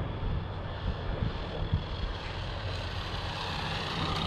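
Electric RC car's brushless motor and drivetrain whining as it is driven back easily at part throttle to let the motor cool, growing louder near the end as it comes past.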